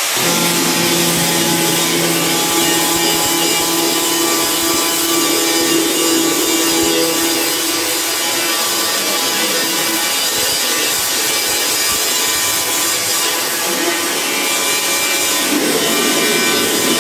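A power tool, most likely an electric angle grinder, running continuously and grinding rusted sheet steel on a refrigerator cabinet: a steady motor tone under a harsh abrasive hiss.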